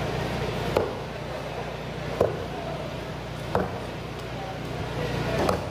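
Heavy cleaver chopping a large red snapper into steaks on a round wooden chopping block: four sharp chops, roughly one every second and a half, over a steady background hum.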